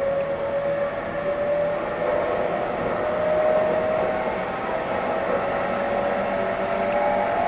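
Tokyu 9000 series train heard from inside a motor car: steady rail and running noise with a traction-motor whine that rises slowly in pitch as the train picks up speed.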